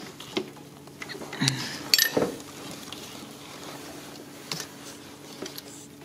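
Scattered metallic clicks and knocks as a bolt is worked loose and pulled out of an engine-bay bracket by hand, the loudest few about two seconds in, over a steady low hum.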